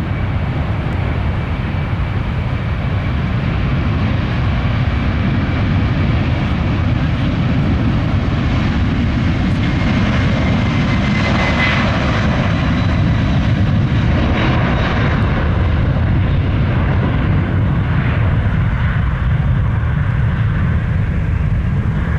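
Boeing 767-432ER's jet engines at takeoff power on its departure, a steady heavy rumble with a whine that builds to its loudest about halfway through and then falls away.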